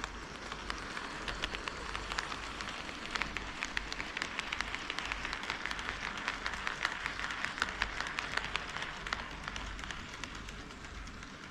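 HO-scale model train rolling on KATO Unitrack: a steady rattle of metal wheels with many rapid clicks over the rail joints. It grows louder through the middle and eases off near the end.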